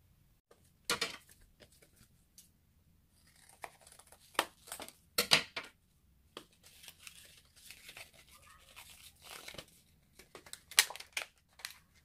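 Card-backed plastic blister pack being torn and peeled open by hand: irregular crinkling with sharp rips, loudest about a second in, around five seconds in, and near the end.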